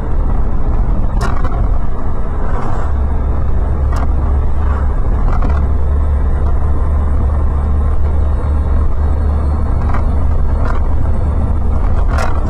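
Steady low rumble of a car driving on a wet highway, heard from inside the cabin, with a few short knocks, the sharpest near the end.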